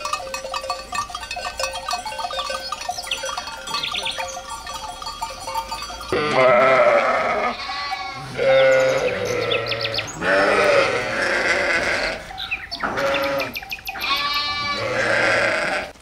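Soft background music for about the first six seconds, then loud bleating from farm animals: about five drawn-out calls, each a second or so long.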